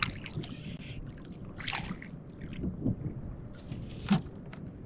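A small trout splashing at the water's surface beside a kayak as it is lifted out on the line, over water lapping at the hull and wind on the microphone. A few short sharp splashes stand out, the loudest near the end.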